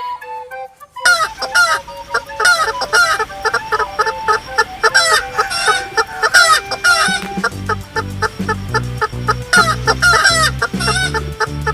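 Hens clucking: a rapid, continuous run of short clucks that starts about a second in.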